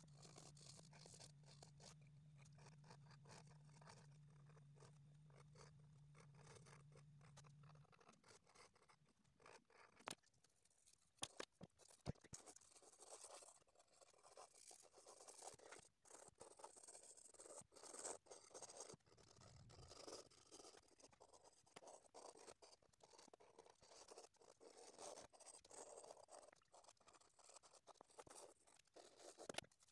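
Near silence: faint scratching of a pencil on drawing paper, with a few soft ticks and a low hum that stops about eight seconds in.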